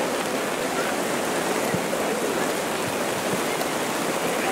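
Heavy rain falling in a steady, dense hiss.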